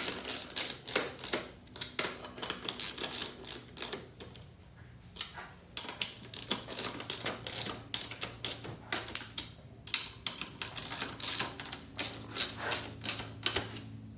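Ratchet wrench clicking in quick runs with pauses between, tightening down the bar clamp's bolts. A steady low hum runs underneath.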